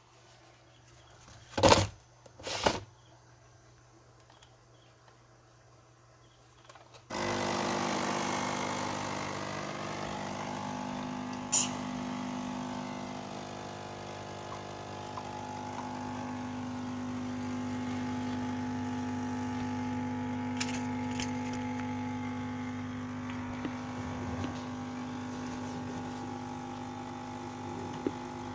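Two sharp clicks, then a Krups capsule coffee machine starts suddenly about seven seconds in and runs with a steady hum while it brews, with a few light clicks over it.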